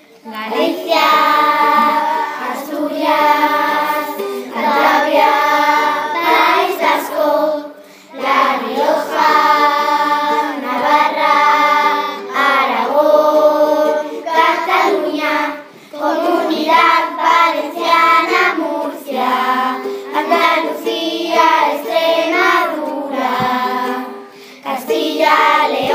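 Children singing a song in Spanish, phrase after phrase with short breaks between lines.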